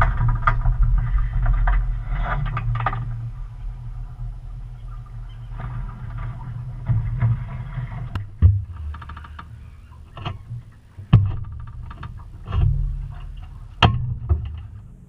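135 hp Cessna 140 floatplane engine idling and then shutting down, the sound fading away over the first few seconds as the propeller winds down. After that, several sharp knocks and thuds.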